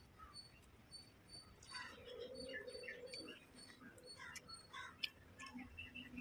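Faint, soft eating sounds from a man eating rice and fish by hand: small wet clicks of chewing and fingers working the rice on a banana leaf. Behind them a steady light ticking, about two ticks a second, and a brief low hum about two seconds in.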